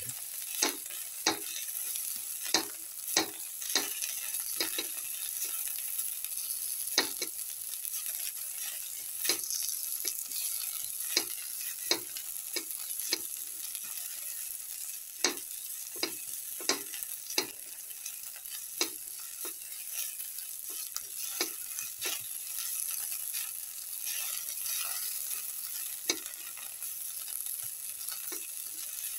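Oil sizzling steadily in a pan as garlic, chilli and whole spices fry, with a spatula stirring and knocking against the pan one or two times a second.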